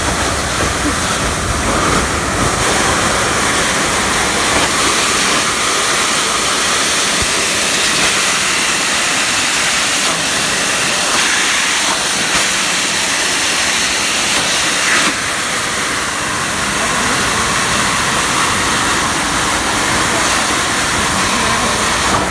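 Air hissing steadily out of the holes of a concrete vent grate in a dam's road surface, with flip-flops laid over some of the holes. The hiss eases a little about two-thirds of the way through.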